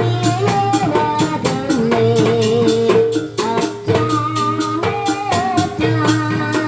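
Jaranan (kuda lumping) accompaniment music: rapid, even drum strokes under a sustained melody line that wavers and slides in pitch.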